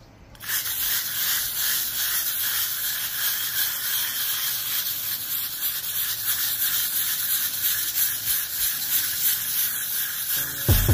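Wire brush scrubbing back and forth over a rendered stucco wall, scraping off loose, flaking old paint: a steady rasping scratch that starts about half a second in.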